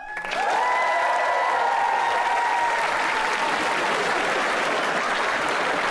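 Studio audience applauding steadily. A few long, held whoops ride over the clapping for the first three seconds or so.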